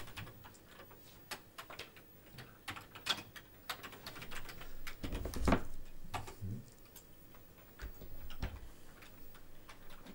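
Typing on a computer keyboard: irregular clicking keystrokes. About halfway through there is a louder, duller knock, and another comes a few seconds later.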